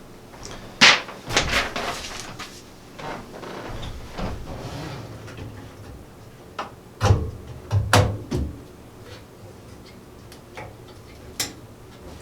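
Sharp plastic clicks and knocks from handling RAM modules and pressing them into a motherboard's memory slots with their latches, with softer rustling in between.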